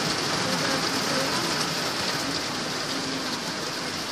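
Heavy rain falling steadily in a downpour, a dense, even hiss.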